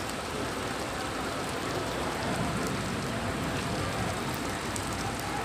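Heavy rain falling and hitting the ground, a steady even hiss.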